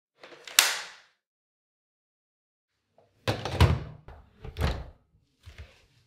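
Plastic clicks and clunks from a Dyson V7 cordless stick vacuum being handled: one sharp click about half a second in as the wand is worked at its joint with the body, then several heavier knocks from about three seconds in as the machine is set into its wall-mounted charging dock, with a lighter knock near the end.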